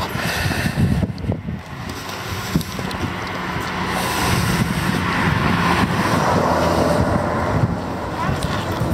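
Wind buffeting the microphone over street traffic noise, with a car passing that swells louder through the second half.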